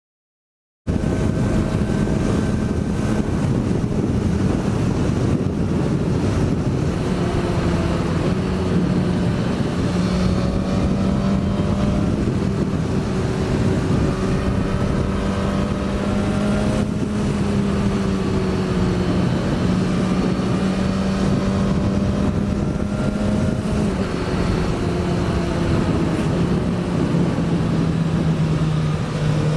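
Onboard sound of a Suzuki GSX-S1000's inline-four engine under way, cutting in abruptly about a second in. It holds a fairly steady pitch with slight rises and falls, over wind rushing past the microphone.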